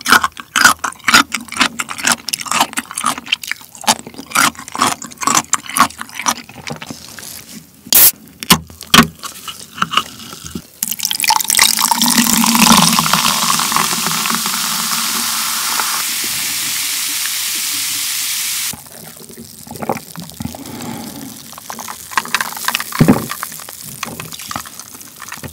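Close-up crunching of pickled chicken-radish cubes being chewed. About eleven seconds in, cola is poured from a can into a glass with ice, a loud steady pour that stops sharply near 19 s, leaving a quieter fizz with a few clicks.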